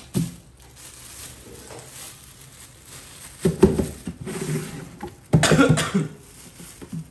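A person coughing: a short cough about halfway and a louder, harsher one a little over two-thirds through, with faint handling noise between.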